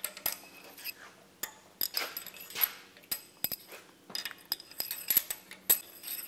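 Steel engine pushrods clinking against each other and a metal rack as they are handled: a scatter of light metallic clicks, each with a short high ring.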